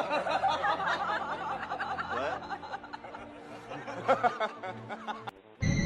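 A person laughing and snickering in quick, wavering peals. Near the end it cuts abruptly to a loud, steady noise.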